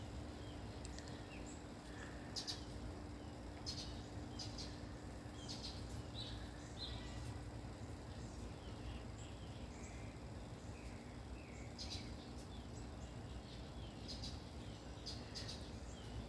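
Faint outdoor ambience: scattered short, high chirps over a low, steady background noise and hum.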